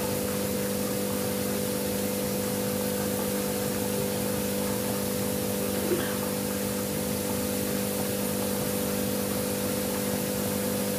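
Steady machine hum with an even rushing noise, like a motor or fan running without change, and one light tap about six seconds in.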